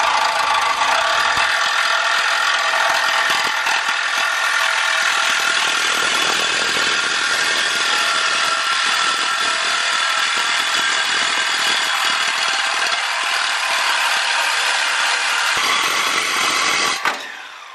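Milwaukee Super Sawzall reciprocating saw cutting through a steel exhaust pipe at the muffler's inlet weld, a steady, extremely loud metal-cutting racket that stops about 17 seconds in.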